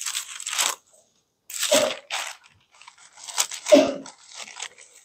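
Thin Bible pages being turned, paper rustling and crinkling in three short bursts.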